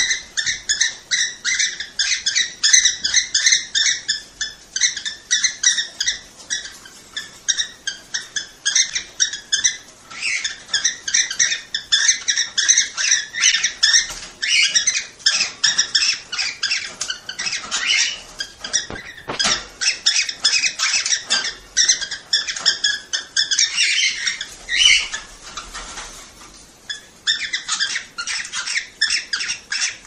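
Cockatiels chattering in rapid, overlapping high chirps and whistles, many a second, with a brief lull near the end: mating-season calls played to stimulate cockatiels to breed.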